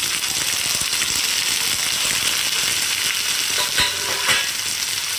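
Oil and masala sizzling steadily in a frying pan, with two ringing metal clinks about four seconds in as shallow-fried cauliflower florets are tipped in from a steel plate.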